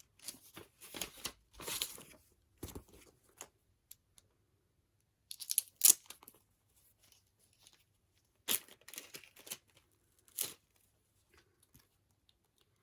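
Plastic photocard packaging being torn open and crinkled by hand, in several short bursts with pauses between, the loudest about six seconds in.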